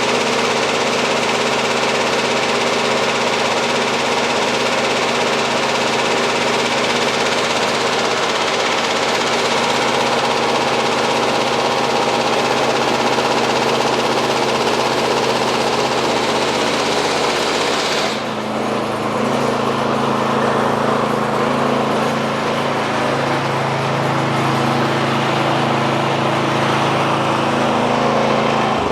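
Cub Cadet 2x24 two-stage snowblower running with the auger and impeller engaged to break in the impeller, a loud steady mechanical whir over the engine note. About two-thirds of the way through, the upper hiss cuts off suddenly and the engine keeps running.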